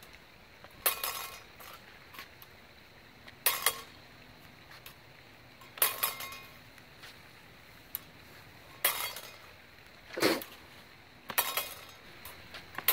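Steel rapier blades clashing in a drill, a brief metallic clink with short ringing each time a hanging-fourth parry meets a cut to the leg, repeated every two to three seconds, once as a quick double clash. About ten seconds in comes one duller knock.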